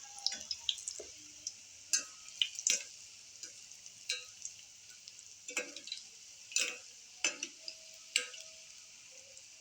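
Hot oil sizzling steadily as dollops of besan bhaje (gram-flour fritter) batter are dropped into it, with irregular sharp pops and crackles.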